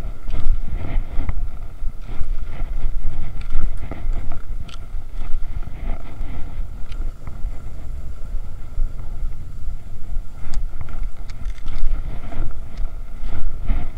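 Wind buffeting the microphone as a low, rough rumble while cross-country skis swish along groomed snow tracks, with a few sharp clicks near the end.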